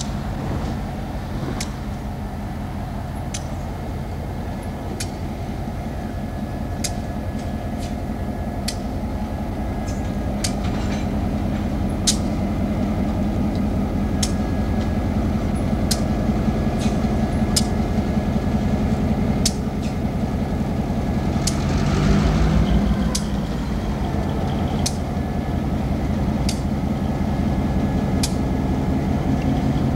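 EMD GP-38 diesel-electric locomotive, a 16-cylinder two-stroke diesel, running as it hauls a freight train past, growing louder as it approaches and loudest about two-thirds of the way through. Sharp clicks come now and then over the engine's steady sound.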